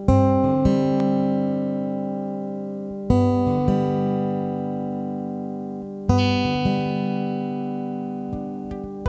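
Background music: guitar chords struck about every three seconds, each left to ring and fade before the next.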